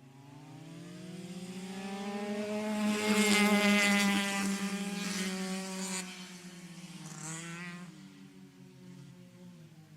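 Go-kart engine running, growing louder over the first few seconds to its loudest around three to four seconds in, then fading away with its pitch dropping a little, as a kart going past.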